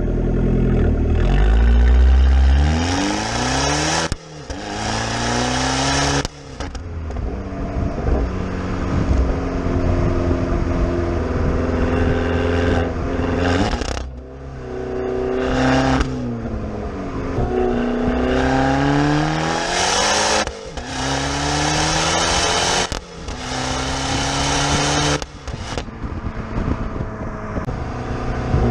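Abarth 500 Esseesse's turbocharged 1.4-litre four-cylinder engine and Monza exhaust under hard acceleration. The revs climb again and again, with brief drops at each gear change, about seven times.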